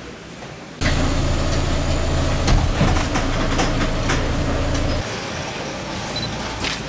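City bus engine running, a steady low drone heard from inside the bus cabin, with a few scattered clicks and knocks. It starts suddenly about a second in and drops to a quieter level near the five-second mark.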